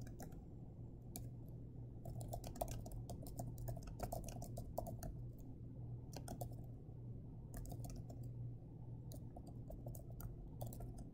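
Typing on a computer keyboard: irregular runs of faint keystroke clicks, with a steady low hum underneath.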